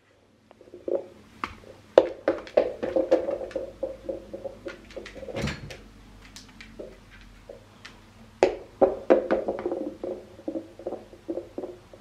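Boxer dog's claws clicking and scrabbling on a hard vinyl floor as it chases a rubber rugby-ball toy, with knocks of the ball bouncing, in two quick flurries, a couple of seconds in and again later.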